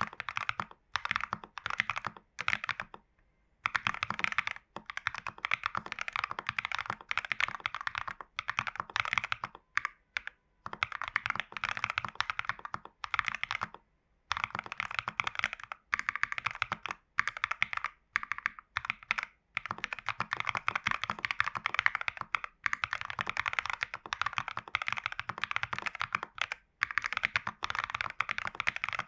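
Fast, continuous typing on a custom mechanical keyboard with lubed, broken-in AKKO Vintage White switches in a foam-dampened, tape-modded TU40 plastic case, keycaps clacking in steady runs broken by brief pauses.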